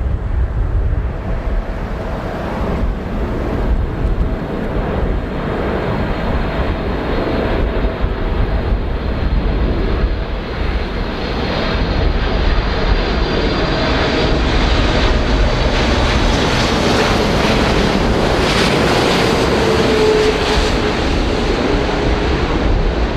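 Boeing 747-8F freighter with four GEnx-2B engines passing low on final approach. The jet noise swells over the second half and a whining tone drops in pitch as it goes by. Some wind rumbles on the microphone.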